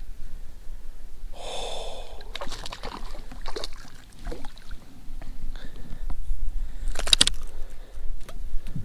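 A hooked smallmouth bass being fought and landed at the boat: irregular splashes, knocks and clicks of handling, with a louder splash-like burst about seven seconds in, over a low steady rumble.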